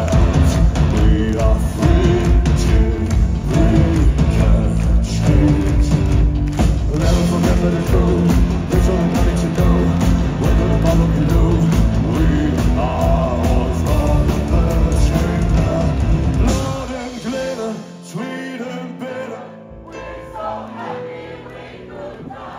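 Live metal band playing loudly, with heavy drums and bass under guitars. About 16 seconds in, the drums and bass drop out, leaving a much quieter passage.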